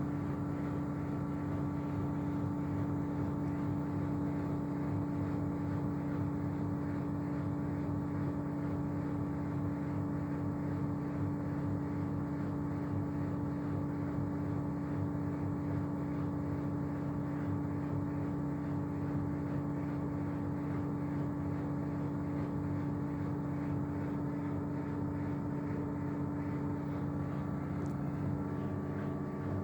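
Whirlpool FSCR90425 washing machine in its 1000 rpm spin: the motor and drum run at speed with a steady hum and a constant-pitched whine.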